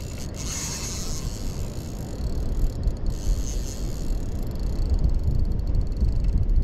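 Wind rumbling over the microphone, growing stronger about five seconds in, with a faint high hiss above it.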